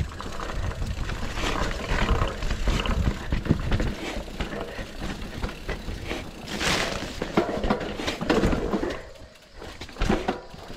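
Mountain bike riding over rough rocky ground: tyre noise, rapid rattling clicks and knocks from the bike, and a low wind rumble on the chest-mounted microphone, with one brief louder hiss about two-thirds of the way through.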